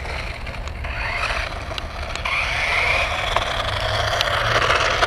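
Crazon 18GS06 1/18-scale 4WD electric RC buggy driving, its motor and drivetrain whining under a scraping tyre noise over the ground, with scattered ticks. It gets louder partway through.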